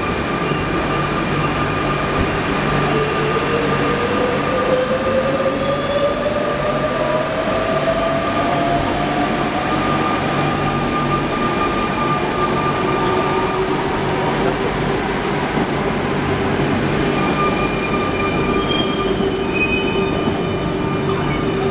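RER Line C double-deck electric train pulling slowly into the platform: a continuous rumble with steady high-pitched tones, and a whine that rises slowly in pitch over about ten seconds.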